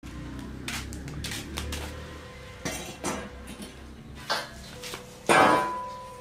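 Long steel pipes set down on a concrete floor: a series of metallic clanks, several of which leave the pipe ringing. The loudest clank comes about five seconds in, and its ring fades over about a second.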